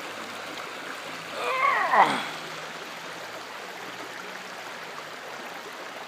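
Shallow river running over rocks and stones, a steady rushing of water. About a second and a half in, a short loud sound with a pitch that falls steeply cuts through it for under a second.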